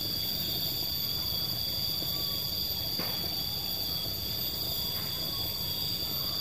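Steady, high-pitched buzzing of insects over a low rumble, with a faint click about three seconds in.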